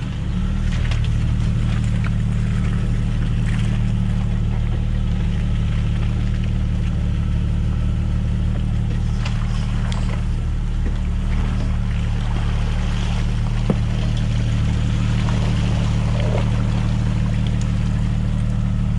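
Jeep Wrangler TJ engine running steadily at low revs while crawling an off-road trail. Scattered light knocks come through, with one sharper knock about fourteen seconds in.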